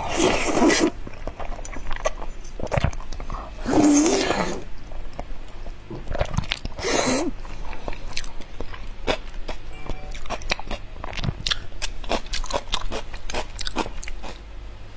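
Close-miked eating sounds of a person eating soft pig brain in spicy broth from a spoon. Three loud slurps come near the start, about four seconds in and about seven seconds in, followed by rapid wet chewing and mouth clicks.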